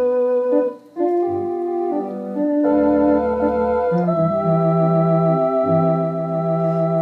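Organ played in slow, held chords over sustained bass notes, the chord changing every second or so, with a brief break just under a second in.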